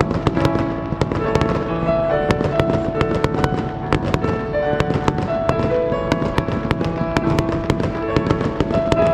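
Fireworks crackling and popping, dozens of sharp cracks in quick succession, over music with long held notes.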